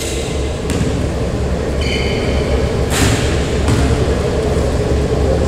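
Steady low rumble of background noise in a gymnasium, with a brief high squeak about two seconds in and a single sharp knock about three seconds in.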